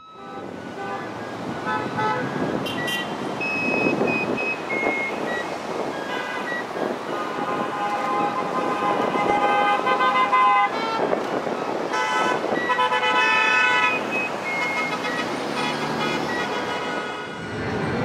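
Car horns honking repeatedly from passing traffic, several drivers at different pitches, mostly short toots with one long honk held for about three seconds in the middle, over steady traffic noise. The honks answer roadside signs that ask drivers to honk.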